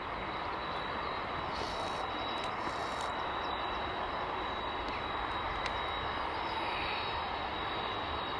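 Airbus A300-600ST Beluga's General Electric CF6 turbofan engines running steadily at low power while the aircraft taxis, a continuous jet rush with a thin high whine.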